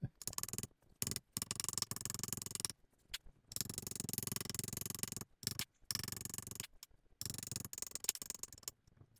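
Kitchen knife mincing onion on an acacia end-grain wood cutting board: rapid chopping taps in runs of about one to two seconds, with short pauses between.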